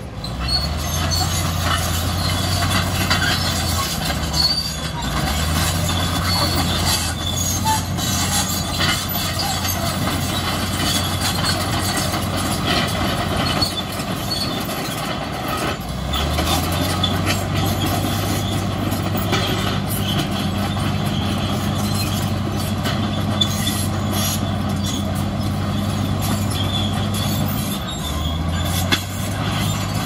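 Crawler bulldozer working: its diesel engine drones steadily, its note shifting a few times as the load changes, over continuous squealing and clattering from the steel tracks.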